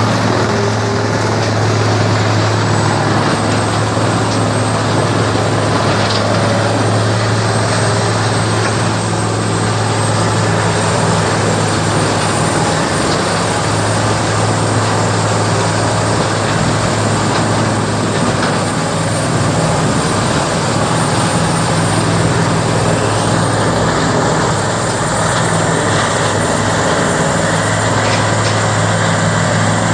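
Vegetation grinder running steadily and loudly: a deep engine hum under a thick wash of noise, with a thin high whine that climbs slightly about two seconds in.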